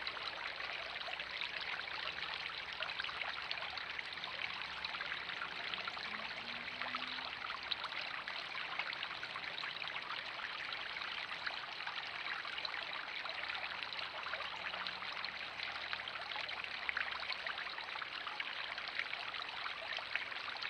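Garden pond fountain jet and small spillway waterfall splashing steadily into the pond: an even, unbroken trickling and splashing of falling water.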